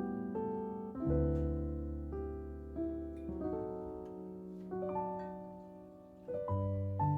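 Slow, gentle solo piano background music, sustained chords that fade away between new ones.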